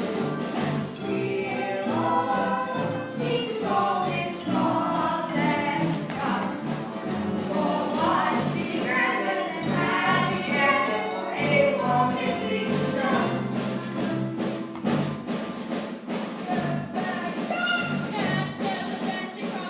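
A stage-musical song: several voices singing together over an instrumental accompaniment with a steady, regular bass pulse.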